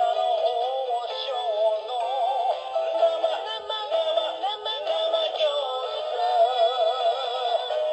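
Gyoza no Ohsho novelty quartz alarm clock's alarm going off, playing a sung melody through its small speaker. The sound is thin, with no bass.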